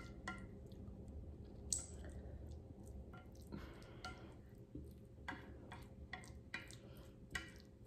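Wooden chopsticks stirring saucy noodles with tuna and rice in a dish: a run of light clicks and taps against the dish, with a brief soft wet stirring sound near the middle.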